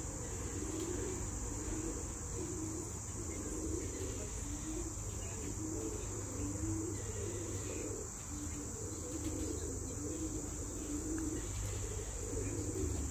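Steady high-pitched insect chorus, with low wavering calls underneath and a constant low rumble.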